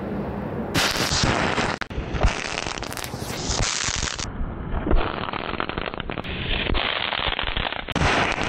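Rapid, dense crackling and popping of small firecracker-type pyrotechnic charges, with a louder bang about five seconds in.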